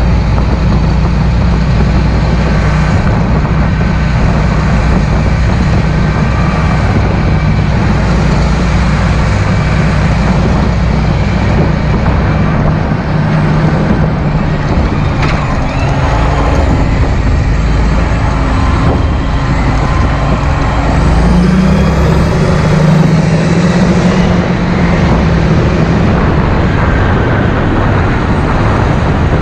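John Deere 8430 tractor's six-cylinder turbodiesel engine running steadily as the tractor drives along the road, its note rising and growing a little louder about two-thirds of the way through.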